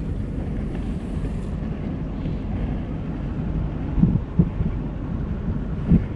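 Wind buffeting the microphone outdoors at sea, a steady low rumble, with a few short louder bumps about four and six seconds in.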